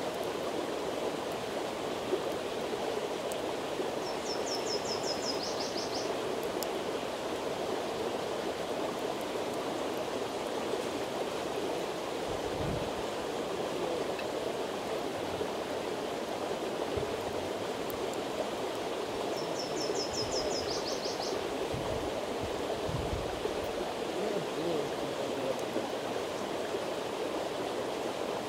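A steady outdoor rushing noise, with a bird's short, rapid trill twice, and a few dull low thumps in the second half.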